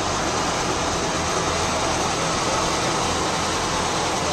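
Steady engine running noise with a constant low hum, unchanging in level.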